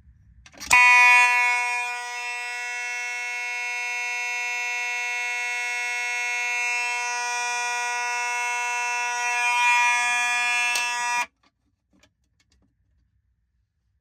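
Fire alarm horn sounding one continuous, steady buzzing tone. It starts abruptly, loudest in its first second, runs for about ten seconds, then cuts off suddenly.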